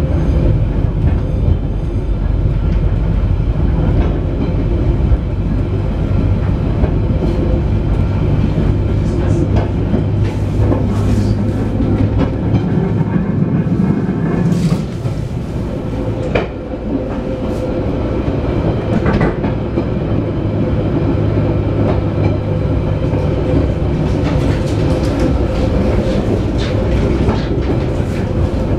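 Inside an ex-London Underground tube carriage running along the line: steady running drone with wheels clicking and rattling over the rail joints.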